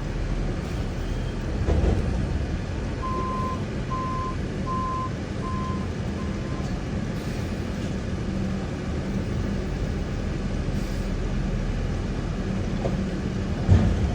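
Four short electronic beeps at one pitch, evenly spaced about two-thirds of a second apart and fading, over a steady low hum; a single thump near the end.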